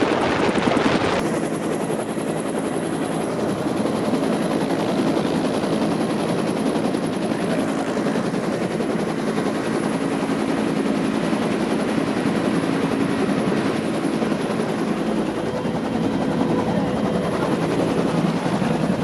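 Rescue helicopter running close by: steady rotor chop under a thin, high turbine whine. About a second in, a burst of wind noise gives way to the helicopter alone.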